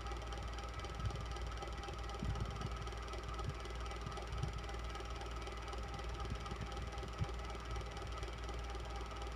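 Electric fan running steadily: a constant motor hum and blade whir with a low rumble, broken by a few soft low thumps.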